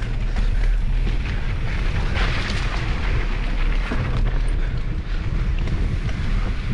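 Wind buffeting the microphone of a bike-mounted action camera, with the rumble and rattle of a mountain bike riding down a dirt trail.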